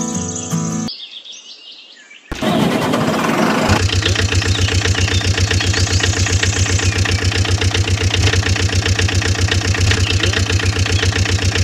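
An engine starts a little over two seconds in with a short rough burst, then settles into a steady, evenly pulsing run of several beats a second.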